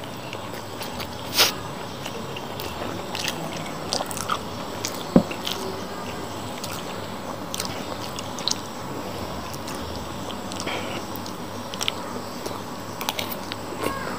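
A person chewing a mouthful of fried rice and tofu, with many short mouth clicks, and a metal spoon clinking now and then against a glass plate; the loudest click comes about a second and a half in.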